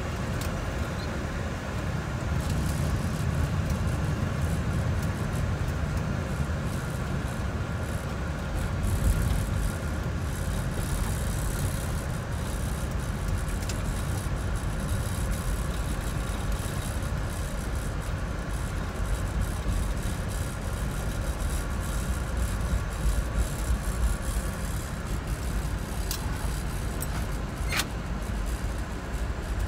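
Flight-deck noise of a Boeing 747-400 rolling out on the runway after touchdown: a steady rush of engine and air noise over a low rumble from the wheels. It swells for several seconds as the jet decelerates, then eases off. Two sharp clicks come near the end.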